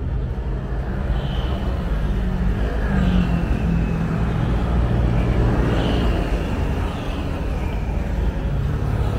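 Street traffic: motor vehicle engines running with a steady low hum, and a few faint high falling squeals over it.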